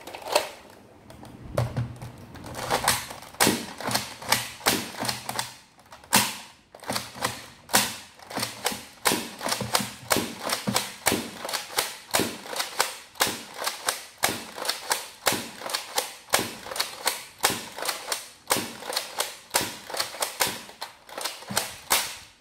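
A foam-dart blaster fed from a long clear clip magazine firing darts in a steady stream, about three sharp clicks a second, with no pause until it stops at the end.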